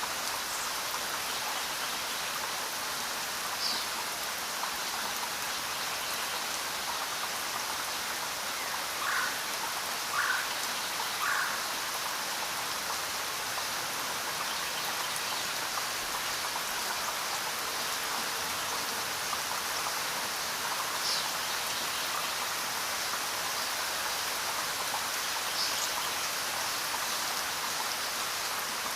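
Steady rain falling in an even, continuous hiss. A few brief, louder sounds stand out above it, three of them close together about ten seconds in.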